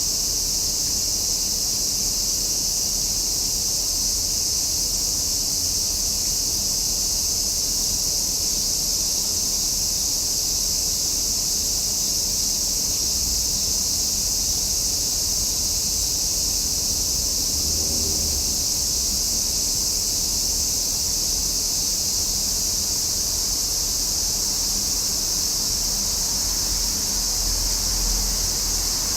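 Cicadas singing in a steady, unbroken, high-pitched chorus that neither rises nor falls.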